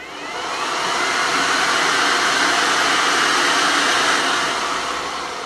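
GHD Aura professional hair dryer switched on: a rising whine as the motor spins up, then a steady rush of air. Near the end it slowly winds down after being switched off, as its turbine coasts to a stop.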